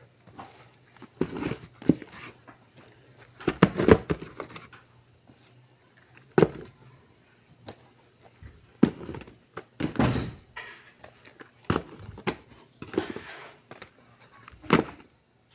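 Small cardboard product boxes being handled and set down into a cardboard shipping carton: irregular knocks, thuds and scrapes of cardboard on cardboard, with short pauses between them.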